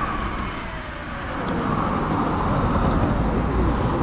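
Sur Ron electric dirt bike on the move: a thin motor whine falls away in the first second as it eases off, then wind and road noise build and stay loud as it picks up speed.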